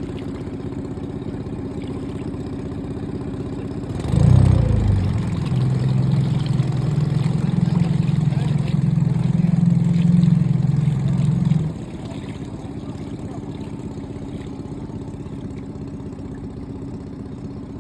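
Outboard motor running at idle, then revved up and held at a steady high pitch for about eight seconds before cutting back to idle.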